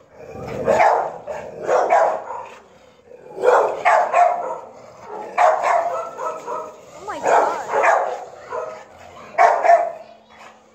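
Dogs in shelter kennels barking in repeated bursts of several barks each, about six bursts, roughly two seconds apart.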